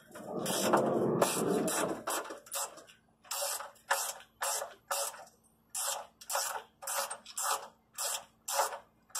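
A 7/16-inch ratchet wrench clicking in quick, even back-and-forth strokes, about two a second, as it loosens the nuts on the battery trays. A longer scraping noise fills the first two seconds.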